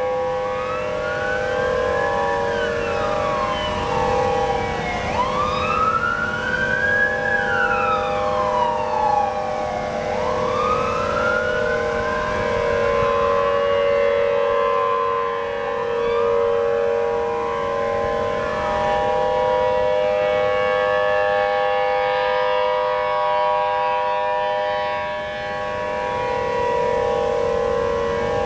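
Tsunami warning sirens sounding a long steady tone, several sirens at slightly different pitches layered together. For the first twenty seconds or so, a siren wail rises and falls over them about every five seconds, then fades out while the steady tone carries on.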